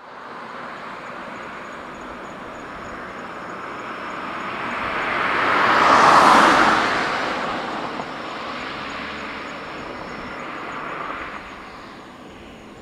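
Distant jet noise from a Boeing 777-300ER's twin GE90 engines at takeoff thrust during the takeoff roll. A louder swell of noise rises and fades, peaking about six seconds in.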